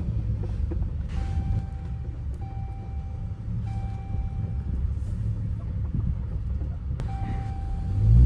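Car engine and road rumble with a low, steady drone, and an electronic warning chime sounding over and over, each tone about a second long.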